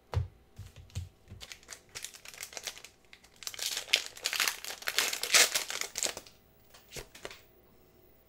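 Foil wrapper of a Pokémon booster pack crinkling loudly for a few seconds as it is handled and opened, after a few light clicks in the first seconds.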